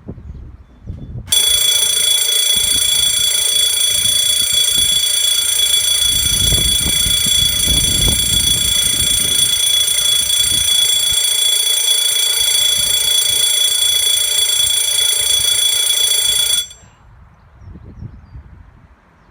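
Scantronic Hero alarm bell box sounding on test: a loud, steady, high-pitched ring that starts abruptly about a second in, holds for about fifteen seconds, then cuts off suddenly.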